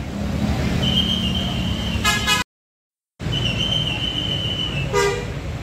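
Buses idling and moving with a low engine drone, under a high steady tone about a second long that comes twice. Two short horn toots sound, one about two seconds in and one about five seconds in. The sound cuts out completely for under a second near the middle.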